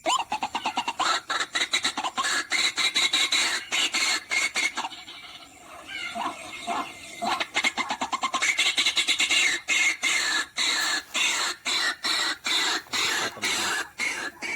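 White-breasted waterhens calling: a dense run of rapid, harsh, repeated squawking calls that eases briefly about halfway and then picks up again.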